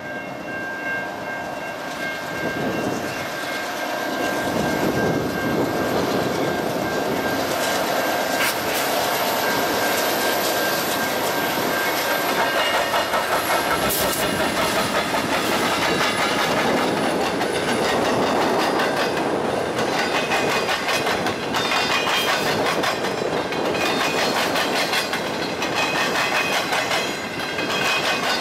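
Canadian National freight train passing close by: the locomotives grow louder from about four seconds in and go past around the middle, then intermodal container cars rumble and clack over the rail joints. Steady high tones sound through the first twelve seconds.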